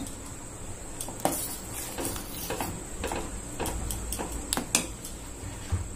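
Steel ladle stirring milky sago payasam in a stainless steel pot, with light, irregular clinks of metal on metal as the ladle scrapes and knocks the pot.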